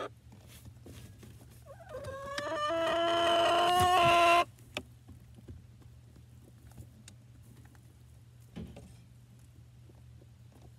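Chickens in a nesting box: about two seconds in, one gives a single long call that rises in pitch and grows louder for about two and a half seconds, then cuts off sharply. After that there are only faint clucks, light scratching ticks and a soft knock.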